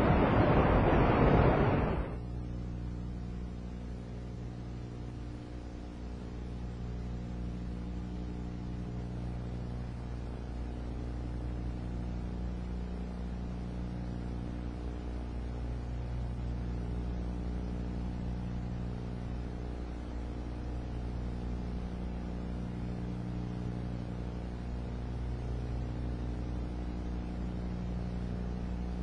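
A loud rush of noise that cuts off about two seconds in, leaving a low, steady drone of several held tones that slowly swell and fade.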